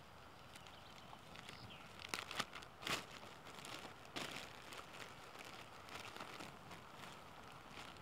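Clear plastic bag crinkling and rustling in the hands as it is tipped over a cooking pot and emptied. It starts about two seconds in, with a few sharper crackles, then goes on in irregular bursts.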